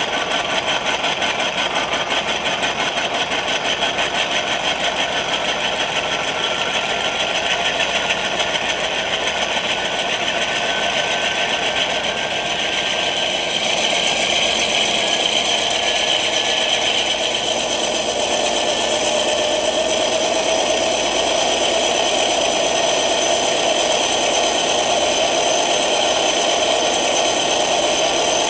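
ESU LokSound decoder's GE Dash 9 diesel prime-mover sound played through an ESU 50348 18x35 passive-radiator speaker in an HO-scale model, running steadily. A whine glides slowly upward, and the engine sound steps up louder about 13 seconds in.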